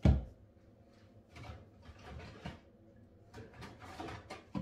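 A sharp thump, then rummaging and clattering among hairspray cans and bottles kept in bathroom storage, with another short knock near the end.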